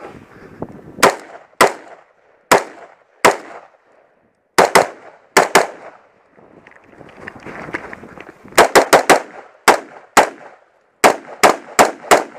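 Scoped semi-automatic rifle firing about nineteen shots in uneven strings: single shots roughly a second apart at first, a pair near the middle, then quick runs of four or five shots near the end.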